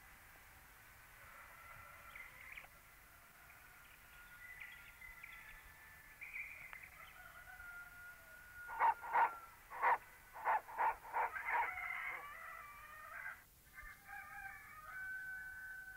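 Chickens calling: drawn-out gliding calls, and in the middle a quick run of about eight loud clucks.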